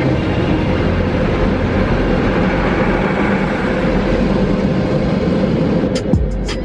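Automatic car wash equipment running, heard from inside the car: a loud, steady rush with a low hum underneath. It cuts off about six seconds in.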